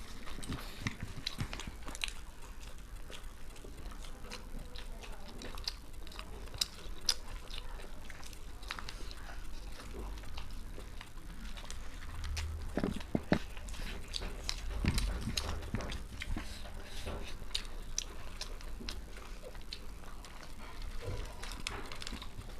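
Close-up sounds of eating: biting into and chewing an egg roll, with irregular small clicks and mouth noises.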